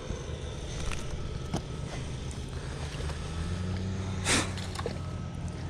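Wind buffeting the microphone, with a steady low hum coming in about three seconds in. Just past four seconds there is one short splash as a largemouth bass is thrown back into the pond.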